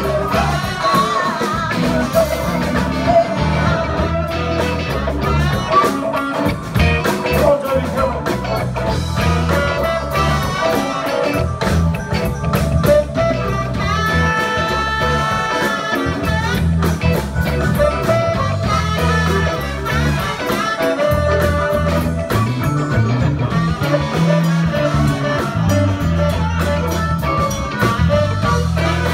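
Band music with guitar, a heavy bass line and drums, and a few long held melodic notes about halfway through.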